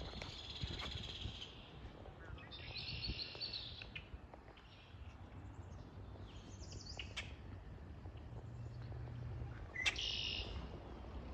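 Songbirds singing: five short, high-pitched song phrases about a second long, a few seconds apart, over a low steady rumble.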